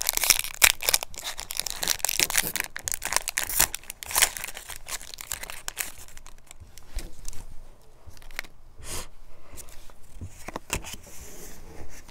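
Foil wrapper of a Pokémon booster pack being torn open and crinkled, dense crackling for the first few seconds. Then quieter rustling and a few light ticks as the cards are taken out and handled.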